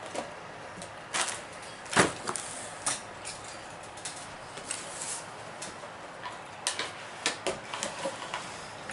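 Irregular clicks, snaps and crinkles of plastic blister packaging being pulled open and handled, with the loudest snap about two seconds in and another cluster of clicks about seven seconds in.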